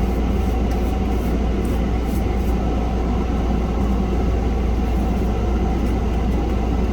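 Steady low hum of running machinery in the room. Over it, a few faint soft scratches in the first couple of seconds as a paintbrush spreads cream peroxide over the plastic case.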